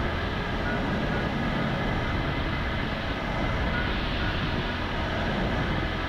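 Cessna 172's piston engine and propeller droning steadily at reduced approach power, heard inside the cabin with airflow noise.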